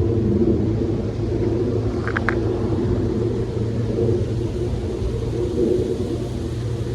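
Steady low rumble of wind, with faint rain hiss above it. A single short tick or drip about two seconds in.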